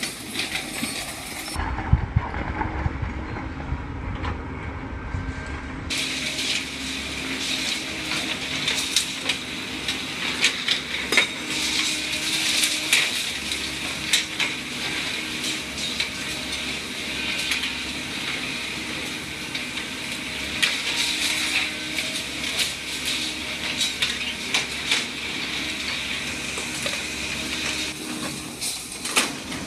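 Heavy demolition machinery at work, with a dense metallic clatter and crunching full of sharp clicks over a steady mechanical noise. About two seconds in the sound changes abruptly for a few seconds, heavier and duller, then the clatter resumes.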